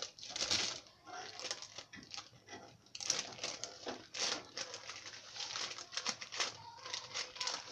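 Butter paper crinkling and rustling in a run of irregular crackles as hands roll a jam-spread sponge cake up inside it and press the sheet around the roll.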